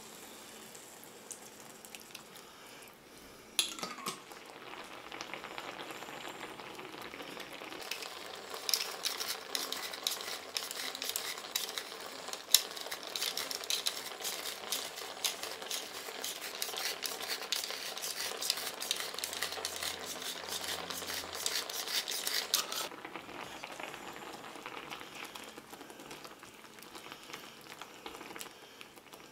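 Cream sauce with spinach and cherry tomatoes sizzling and bubbling in a frying pan, with a dense crackle that grows busier about eight seconds in and cuts off suddenly near the end. There is a single sharp knock about four seconds in.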